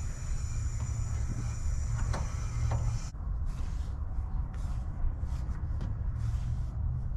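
Refrigerant hissing as a mini-split outdoor unit's service valves are opened to release its charge into the evacuated line set, over a steady low hum; the hiss cuts off suddenly about three seconds in, after a few light metallic clicks from the valves.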